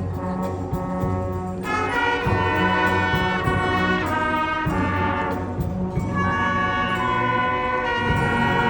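Youth brass band playing outdoors: trumpets and trombones holding sustained chords over a steady bass line.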